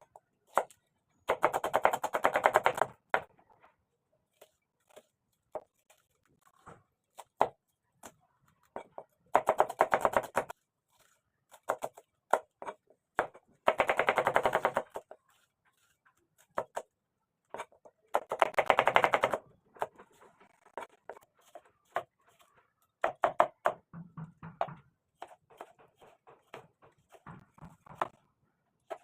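Rapid knife chopping on a cutting board: four quick bursts of fast, even strokes, each lasting a second or two, with scattered single knocks between them.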